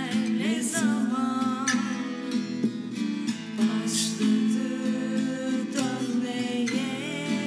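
Music: a strummed acoustic guitar accompanying a woman singing a melodic line without clear words.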